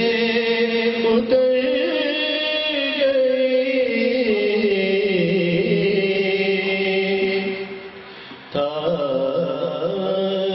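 A man's voice reciting an Urdu naat, sung in long held notes that slide and turn in pitch, with a brief pause about eight seconds in before the line resumes.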